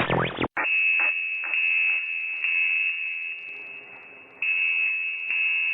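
Electronic music cuts off abruptly half a second in and gives way to a steady, high-pitched electronic alert tone, an emergency-broadcast-style attention signal, with a few faint clicks. The tone fades somewhat and then comes back louder about four and a half seconds in.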